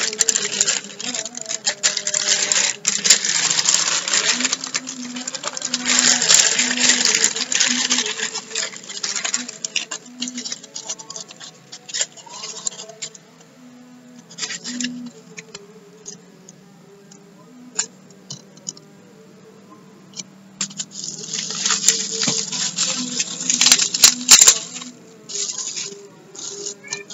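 Plastic and paper packaging crinkling and rustling as it is unwrapped by hand. It comes in dense crackling stretches for the first ten seconds or so, goes quieter with scattered crackles in the middle, and is loud again for a few seconds near the end.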